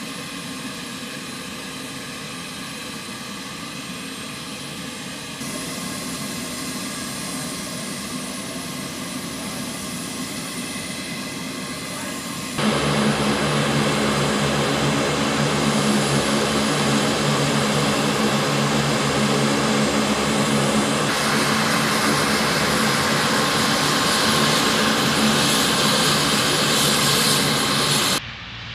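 Lockheed C-130J Super Hercules turboprop engines and six-bladed propellers running with a steady drone made of several steady tones. The sound gets clearly louder about halfway through and stays loud until just before the end.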